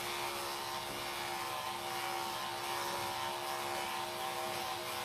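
Electric pet grooming clippers running with a steady buzzing hum as they trim a small white dog's coat.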